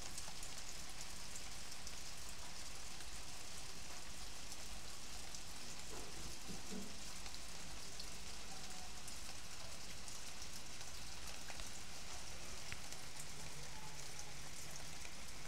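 Steady rain falling on leaves and wet ground: an even hiss with many small close drop ticks scattered through it.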